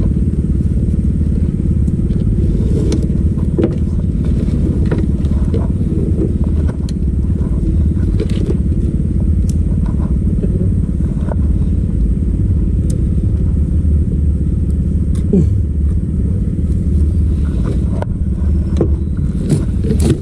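Small boat's engine running steadily, with scattered light knocks.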